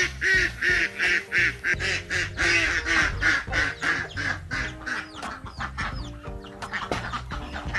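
Ducks quacking in a rapid, hoarse run of about three calls a second, tailing off after about five seconds, over background music.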